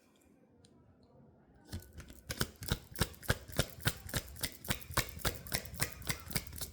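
Tarot cards being shuffled by hand: a rapid, even run of card slaps, about four or five a second, starting faintly and growing louder about two seconds in.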